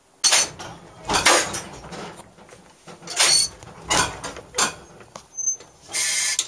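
Irregular clanks and squeaks from the cab and running gear of a 1909 ex-MBTA Type 3 snowplow streetcar under way, heard from inside the cab: about six short, harsh bursts, the longest near the end.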